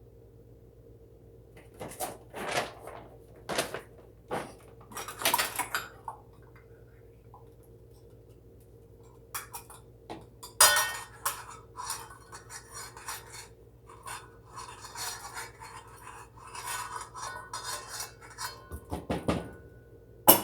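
Kitchen utensils and dishes clattering and clinking as baking ingredients are measured and handled: a few sharp knocks about two seconds in, then after a pause a long run of clinks and scraping.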